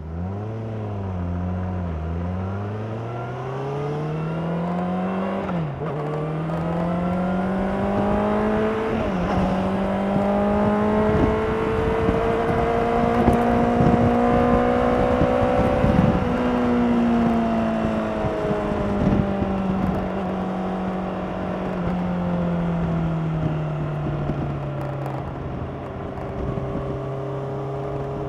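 2016 Honda CBR600RR's inline-four engine through its stock exhaust, heard on board while riding. The revs wobble briefly at first, climb steadily for several seconds and hold high, then slowly fall away to a steady lower drone near the end.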